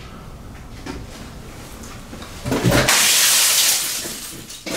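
Something thrown hard against a wall smashes, a little past halfway through. The loud crash of breaking and scattering fragments lasts about a second and a half before fading.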